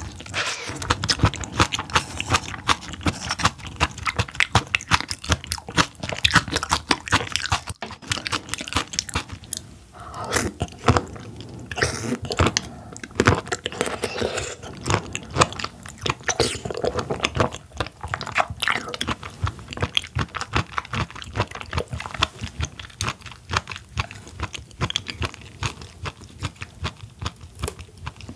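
Close-miked eating sounds: a person biting and chewing crunchy seafood, with quick, irregular crisp crunches packed closely throughout.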